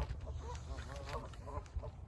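A flock of geese honking, many short calls overlapping one another, over a steady low rumble.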